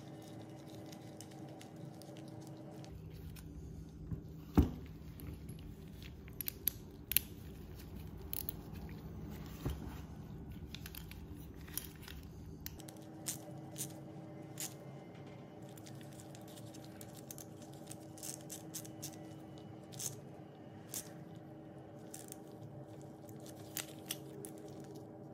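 Small metal clicks, ticks and scrapes of screws, washers and a hand socket wrench being handled while screws are driven into a plastic LED fog light pod's mounting bracket, over a steady low hum. One sharper knock comes a little over four seconds in.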